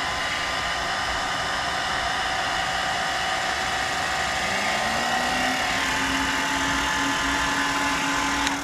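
Handheld hair dryer blowing steadily, heating a fan-controller temperature sensor. About halfway a low hum rises in pitch and then holds steady as the power station's 12 V cooling fans spin up, triggered by the heat; the dryer cuts off at the end.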